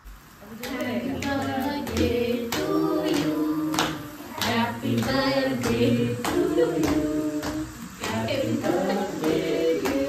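Several people singing a birthday song together, clapping along in time at about two claps a second.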